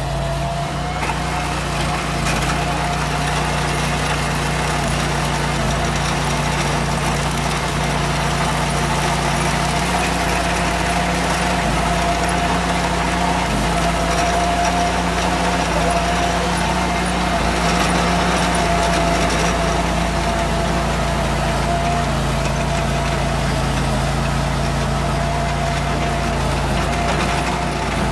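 Ditch Witch compact tracked trencher, its engine running steadily under load while the digging chain cuts a trench through the soil.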